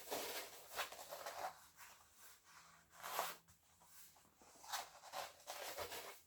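Diamond painting canvas rustling as it is handled, a few soft swishes.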